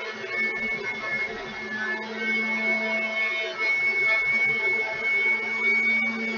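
Small electric blender running steadily, a motor whine with a fixed high tone, grinding granulated sugar and cornstarch into powdered sugar.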